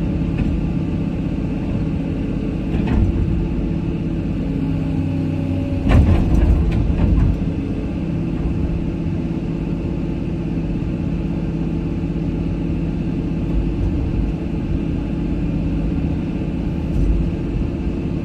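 Excavator's diesel engine running steadily, with a cluster of clanking knocks about six to seven seconds in and single knocks near three and seventeen seconds.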